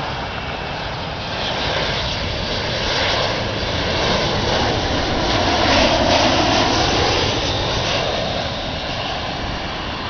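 Jet airliner on its landing approach, passing close by: a steady rush of engine noise that swells to its loudest about six seconds in, then eases off.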